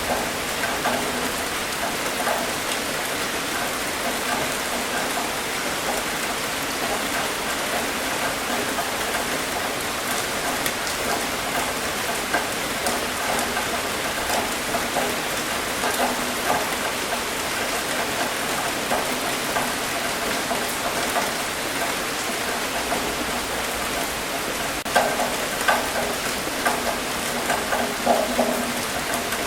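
Steady rain pattering on a surface, with scattered louder drop hits growing more frequent near the end.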